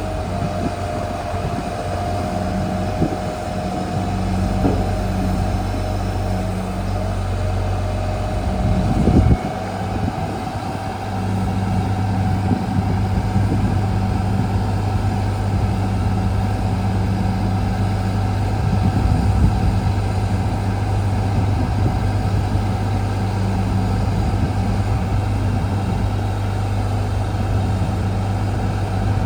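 Diesel engine of a Daewoo concrete pump truck running steadily, with a steady whine above the engine note. About nine seconds in there is a brief louder surge, after which the engine hum is steadier and stronger.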